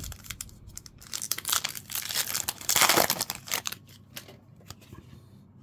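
Crinkling and tearing of a trading-card pack's wrapper being ripped open, loudest about three seconds in, then fading.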